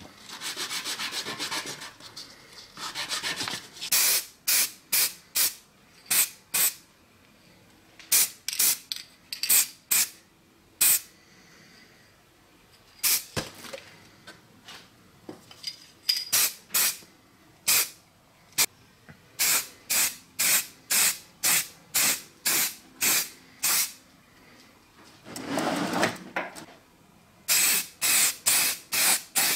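Aerosol spray-paint can hissing in many short bursts, about one or two a second, as paint is sprayed on in quick passes. A couple of seconds of rubbing noise come first.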